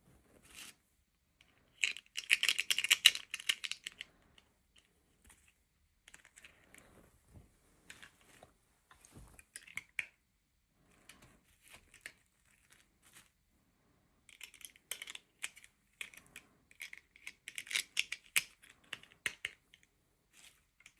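Toy packaging being handled, crinkled and torn open: a dense burst of crackling about two seconds in, scattered clicks and taps, then a longer stretch of crinkling and tearing in the second half.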